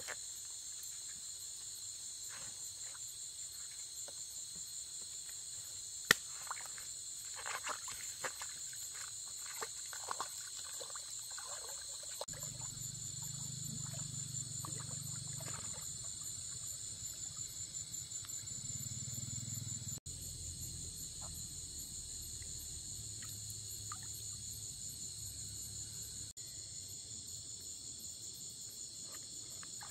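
Night chorus of crickets and other insects, a steady shrill trilling. A sharp click comes about six seconds in, short rustles follow, and a low rumble runs for several seconds in the middle.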